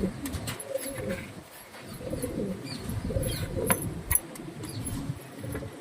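Domestic pigeons cooing in repeated low, throaty phrases, with a few sharp clicks, the loudest about two thirds of the way through.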